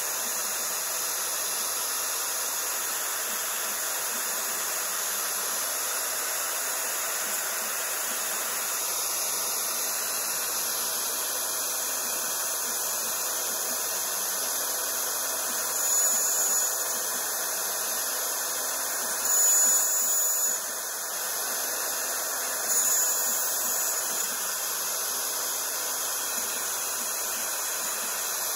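X-Carve desktop CNC router's spindle running at high speed as a 1/8-inch bit mills 2 mm aluminium sheet, a steady high hiss. Three times in the second half the cut gets briefly louder, with a high-pitched tone.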